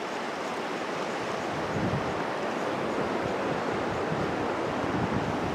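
Steady rush of waterfall water, a continuous even noise with no distinct events.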